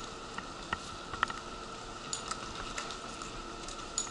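Wheelchair rolling along a concrete station platform with the attendant's footsteps: light irregular clicks and taps, a few a second, over a faint steady whine.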